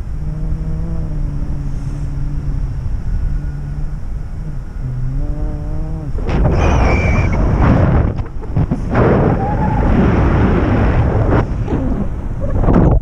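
Wind rushing over the camera microphone in paraglider flight, gusting louder and rougher after about six seconds. Over the first part runs a steady low hum with overtones.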